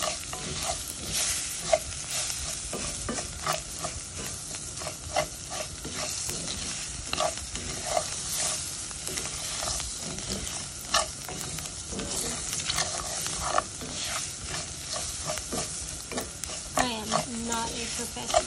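Raw rice and onion slices frying in olive oil in a pot, sizzling steadily, while a spoon stirs through the grains with frequent short scrapes and clicks against the pot. This is the rice being toasted until it turns opaque and starts to brown.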